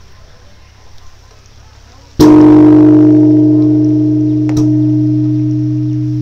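A large temple bell is struck once about two seconds in. It rings on with a deep hum beneath a strong steady middle tone and fades slowly, with a light knock partway through the ring.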